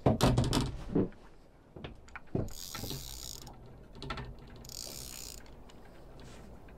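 Fishing reel being wound in on a hooked fish, its gears whirring in two spells of about a second each, after a few knocks from the rod and reel being handled in the first second.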